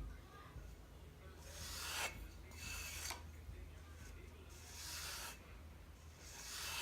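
A cleaver's edge, forged from a lawnmower blade, being sharpened by hand in slow strokes across an abrasive: about four rasping strokes, each growing louder through the stroke, one to two seconds apart, over a steady low hum.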